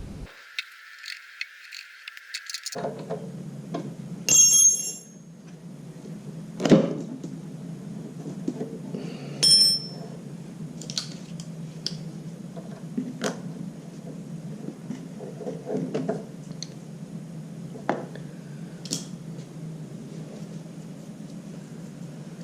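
Metal hand tools and parts clinking and knocking during reassembly. Two bright, bell-like metallic rings stand out, about four and a half and nine and a half seconds in, among scattered clicks, over a steady low hum.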